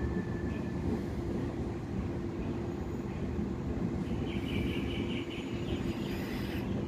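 A double-deck electric train stands at the platform with a steady hum and rumble and a constant low tone. About four seconds in comes a brief higher warbling sound.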